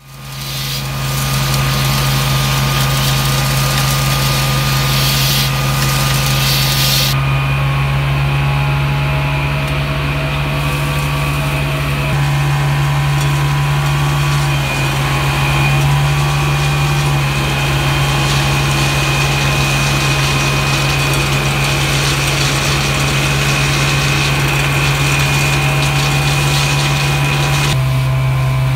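Hydro-vac truck's engine and vacuum blower running at a steady, loud drone with a constant low hum, the suction line pulling air and soil from an excavation hole. The sound fades in at the start and shifts abruptly a couple of times.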